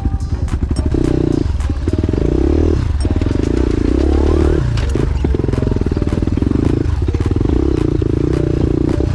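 Single-cylinder four-stroke trail bike engine under load on a rocky uphill climb, the throttle opening and closing in surges about once a second, with stones clicking and clattering under the wheels.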